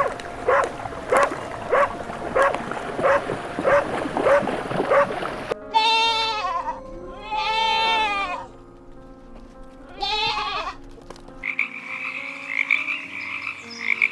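A run of recorded animal calls. First a short, sharp call repeats about every half second, then three long wavering bleating calls follow, then a steady high trill begins near the end, over faint steady background tones.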